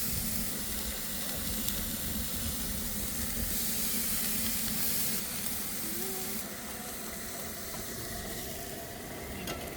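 Burger patties sizzling on a grill: a steady frying hiss that grows a little louder in the middle and eases off a few seconds later.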